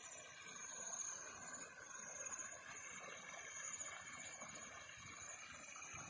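Faint, steady high-pitched trilling of insects in the vegetation, over a soft outdoor hiss.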